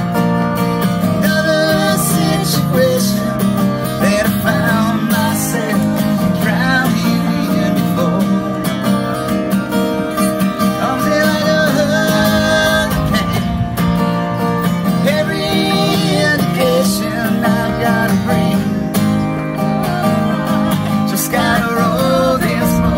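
Acoustic guitar strummed steadily while a man and a woman sing a song together.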